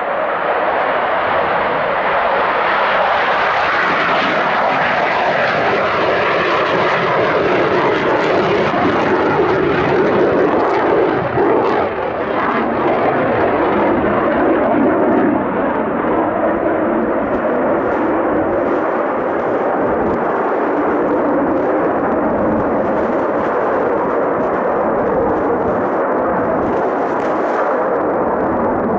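Boeing F-15QA Eagle's twin jet engines, a loud, steady rush of jet noise as the fighter flies a touch-and-go circuit, with a faint shifting whine partway through.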